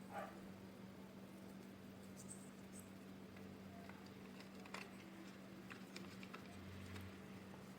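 Faint, scattered clicks and light taps of parts being handled, over a steady low electrical hum.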